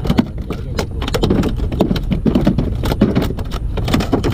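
A freshly landed striped catfish (pangasius) flopping on the wooden floor planks of a boat: a rapid, irregular run of slaps and knocks.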